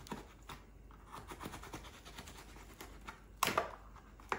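Scissor blades scratching and scraping at the seal of a small cardboard box, a run of light scratches and small clicks, with one louder short scrape about three and a half seconds in.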